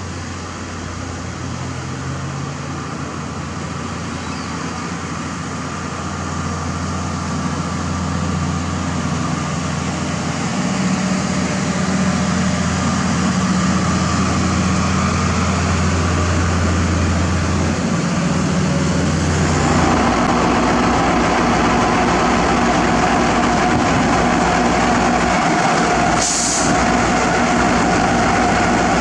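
Heavy diesel construction machinery running with a steady low engine drone that builds in loudness. About two-thirds of the way through the sound changes to a rougher, busier engine noise, and a short high hiss comes a few seconds later.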